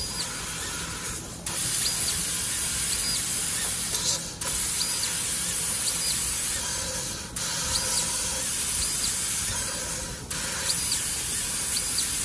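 Laser tube-cutting head cutting round metal tube: a steady hiss of the cutting jet that breaks off briefly about every three seconds, between cuts. Short high tones come and go faintly behind it.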